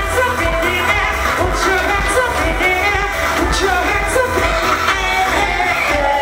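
Live pop music played loud: a woman singing into a microphone over a backing track with heavy bass.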